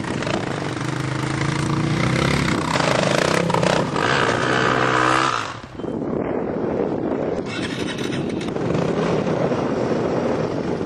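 A dirt bike engine revving hard, its pitch climbing, then cutting off sharply about five and a half seconds in. A steady rushing noise follows.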